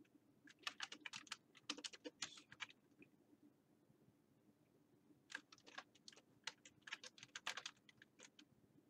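Faint typing on a computer keyboard: two quick runs of key clicks with a pause of about two seconds between them.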